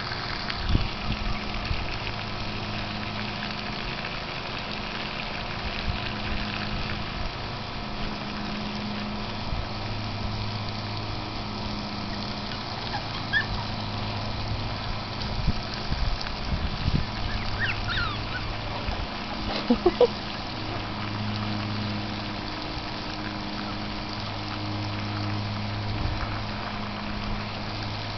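Garden hose stream splashing onto dirt in a steady hiss, with a low hum coming and going. A few short, high, squeaky calls and some knocks sound around the middle.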